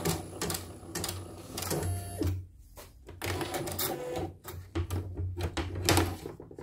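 CNY portable embroidery machine stitching in short, uneven runs of needle clicks with brief pauses, working through the last stitches of a design. The machine is running again after a repair for a total power-dead fault.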